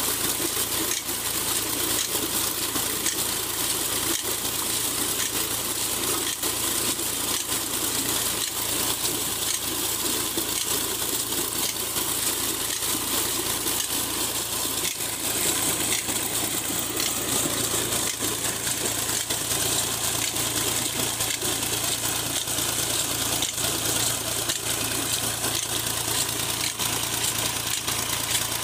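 Fiat 480 tractor's diesel engine running steadily, driving two tubewell pumps by long belt and shaft, with a low hum throughout. Over it is the steady rush of water gushing from a 7-inch delivery pipe into a concrete tank.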